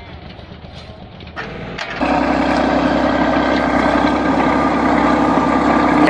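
For about the first two seconds a mini excavator's engine runs faintly. Then, from about two seconds in, a crawler bulldozer's diesel engine runs loud and steady with a constant drone.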